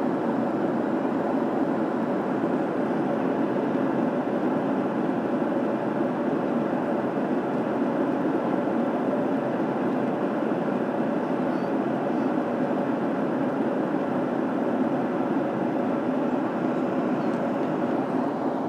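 Steady cabin noise of a Boeing 737 in flight: an even rumble of engines and rushing air heard from inside the cabin, with a faint steady hum and no sudden sounds.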